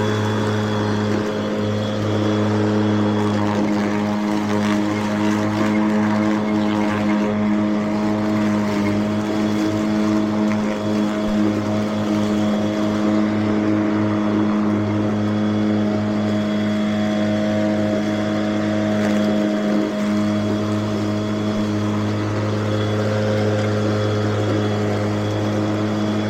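Battery-electric Mowrator 2WD remote-control mower running with its blades spinning, a steady multi-tone motor hum that holds the same pitch throughout.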